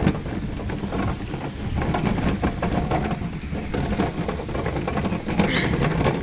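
Hard skateboard wheels rolling over pavement: a steady rumble full of small, irregular clacks.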